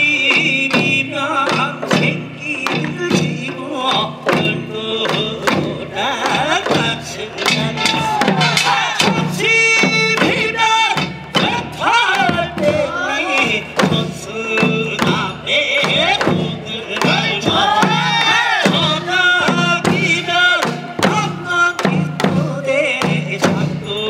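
Korean farmers' band (pungmul) music: drums beating a steady dance rhythm under a wavering melody.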